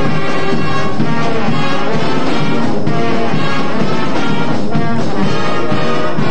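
High school marching band playing a loud, full ensemble passage led by brass, trombones and trumpets, recorded in a band room.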